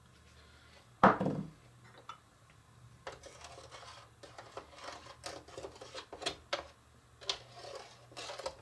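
A spoon knocking, then scraping and clicking irregularly in the plastic top reservoir of a toy coffee maker as hot cocoa powder is stirred into the water, with one louder knock about a second in.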